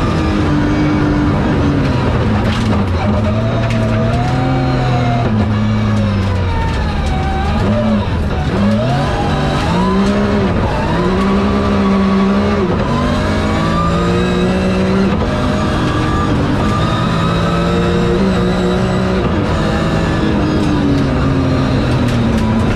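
BMW rally car engine heard from inside the cabin, revving hard and changing pitch with each gear. The revs drop sharply under braking and downshifts about eight seconds in, then climb again through the gears, over the rumble of tyres on gravel.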